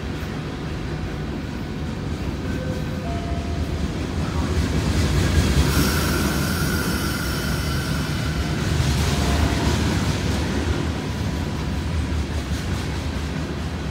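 Train rolling on the rails: a steady rumble of wheels that swells in the middle, with a brief high squeal about six seconds in.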